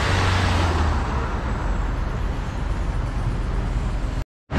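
Steady street traffic noise of passing cars and engines, a little louder in the first second. The sound cuts out completely for a moment just before the end.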